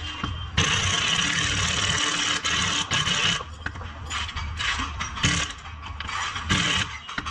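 Pneumatic impact wrench hammering on a front control arm bolt: one long run of about three seconds, then several short bursts in the second half.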